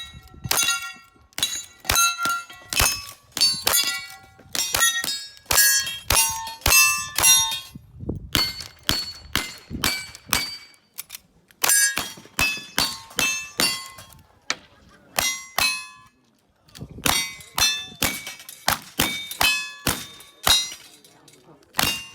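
Rapid gunfire from a cowboy action shootoff, the shots mixed with the ringing clang of bullets striking steel plate targets, dozens of hits in quick succession with a brief pause past the middle.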